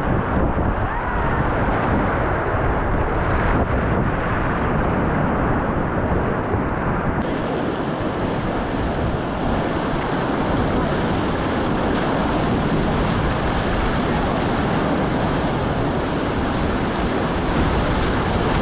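Whitewater rapids of the South Fork Payette River at high water, about 3000 cfs, rushing and churning steadily around an inflatable raft.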